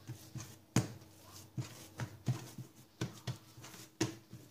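Hands pressing and rolling a soft yeast dough for hamburger buns against an oiled countertop, giving an uneven series of about ten soft thumps, the loudest a little under a second in.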